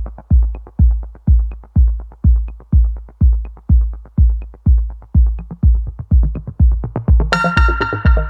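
Electronic dance music backing track: a steady four-on-the-floor kick drum at about two beats a second, with a bright synth chord coming in about seven seconds in.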